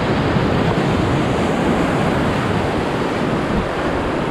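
Whitewater rapids rushing around a raft: a loud, steady wash of churning river water.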